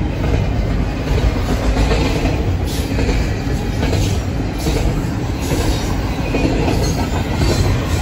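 CN double-stack container freight train passing the level crossing: a steady, loud rumble of wheels on rail, broken by a few sharper clacks.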